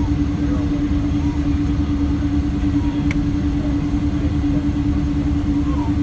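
Steady cabin noise inside a Boeing 777-200 airliner: a constant low rumble of engines and airflow with a steady hum, and one small click about three seconds in.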